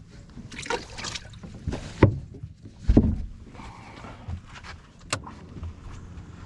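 Knocks and rustling of gear being handled in a small fishing boat, with two loud thumps about two and three seconds in.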